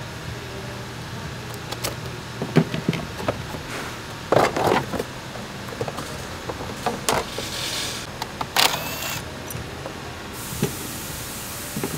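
Clicks, knocks and clatter of tools and plastic parts being handled in a car's engine bay, loudest about four to five seconds in. There is a short whir with a rising tone near nine seconds, over a steady low hum.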